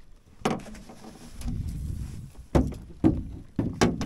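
Several sharp knocks and thumps in a small fishing boat as a peacock bass is netted and lifted out of the landing net, with the loudest cluster in the last second and a half.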